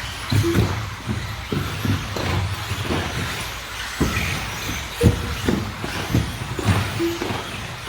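Electric 2wd RC buggies with 17.5-turn brushless motors racing on an indoor carpet track: irregular knocks and thumps, many a second, over a steady noise of motors and tyres.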